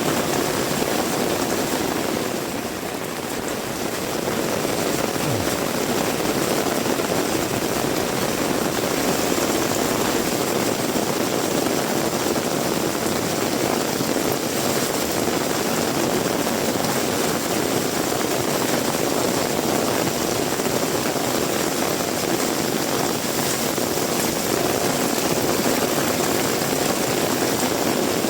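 Heavy rain falling steadily, a dense even rushing hiss, dipping slightly about three seconds in.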